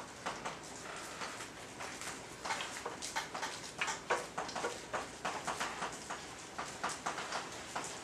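Chalk writing on a blackboard: a run of short, irregular taps and scrapes, several a second.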